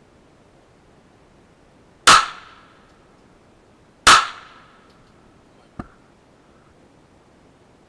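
Two shots from a Canik TP9 9mm semi-automatic pistol, about two seconds apart, each followed by a short ringing echo. A much fainter single knock comes a couple of seconds after the second shot.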